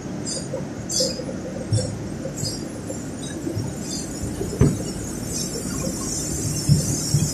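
Flour mill machinery running with a steady low hum and a regular squeaky clink about every 0.7 seconds. A single thump comes a little past halfway, and a high hiss sets in near the end.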